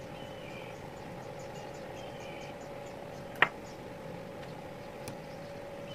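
Handling of an old electric drill's opened housing and motor parts: one sharp click about halfway through and a faint one near the end, over a steady hum and faint insect-like chirping.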